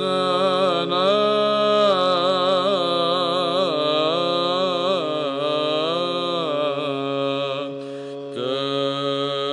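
Byzantine chant in Arabic, in the sixth tone: a solo male chanter sings a slow, ornamented melody over a steady held drone note (ison). There is a brief pause about eight seconds in.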